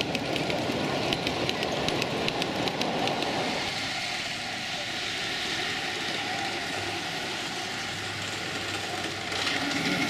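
Ride-on miniature railway cars rolling past on the track, their wheels clicking over the rail joints in a quick, even rhythm over a rumble for the first few seconds, then a quieter rolling sound. Near the end a louder engine sound comes in as a locomotive approaches.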